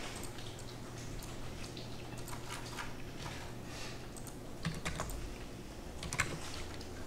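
Computer keyboard typing: light, scattered key clicks, a few sharper ones in the second half, over a low steady hum.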